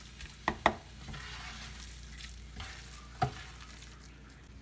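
Spatula stirring and scraping pre-boiled mung beans as they sauté in a stainless steel pot, over a soft sizzle. Sharp clacks of the spatula on the pot come twice in quick succession a little after half a second in and once more just after three seconds. This is the sautéing stage, before water is added.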